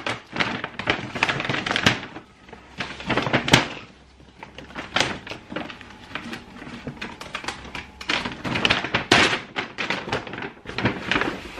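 Stiff brown kraft-paper grocery bags rustling and crackling as they are handled, opened and unpacked, in an irregular run of sharp crackles with a few louder knocks.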